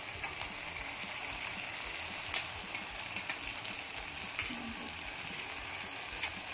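Chowmein stir-fry sizzling steadily in a pan on high flame while it is stirred, with sharp clicks of the stirring utensil against the pan about two and a half and four and a half seconds in.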